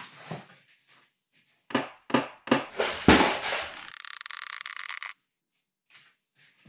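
Three sharp hammer blows, then a heavy crash followed by about two seconds of rattling clatter that cuts off suddenly: off-screen banging while hanging a picture.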